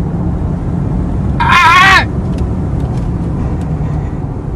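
Steady low rumble of a Porsche driving at high speed, heard inside the cabin. About a second and a half in comes a brief, high, wavering cry from a person's voice.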